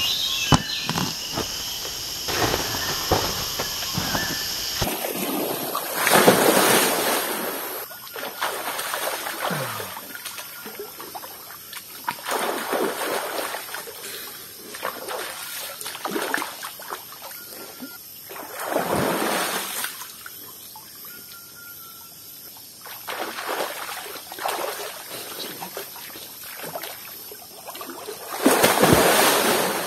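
A person bathing in mountain spring water, splashing and sloshing it in repeated irregular bursts over a steady hiss of running water.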